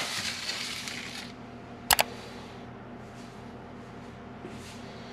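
Aluminium sheet pan with a foil-wrapped roast set down on a granite countertop: a brief rustle, then a sharp double clack of metal on stone about two seconds in, over a steady low hum.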